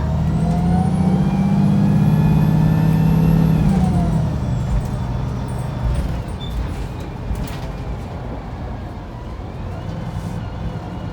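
A Wright Pulsar 2 single-deck bus's engine and automatic gearbox under hard acceleration: the engine note climbs for about two seconds with a high whine above it, holds, then drops away about four seconds in as the bus changes up or eases off. A sharp knock about six seconds in, then the bus runs on more quietly, with a softer rise in engine note near the end.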